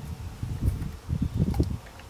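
Wind buffeting the microphone: an uneven low rumble that comes and goes, with a few faint ticks.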